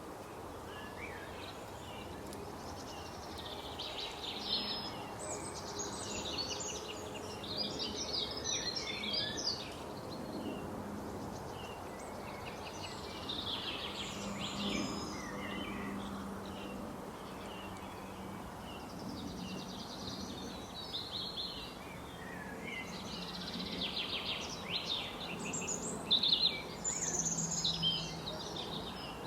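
Small songbirds chirping and trilling in bouts of quick high notes, several in a row, over a steady outdoor background noise with a faint low hum.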